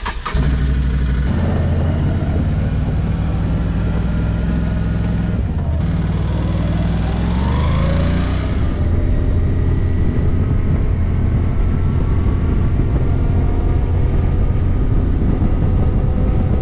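Can-Am four-wheeler's engine starting up and running, then revving with a rising whine as it pulls away, and running steadily while riding.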